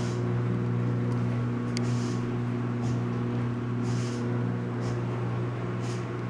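A laundry machine running with a steady low hum, and a soft swish about once a second.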